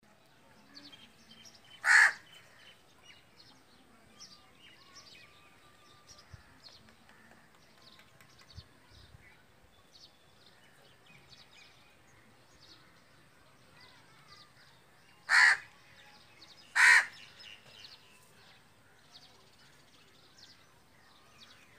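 A crow cawing three times: one loud harsh caw about two seconds in, then two more close together near the end. Faint chirps of small birds sound in between.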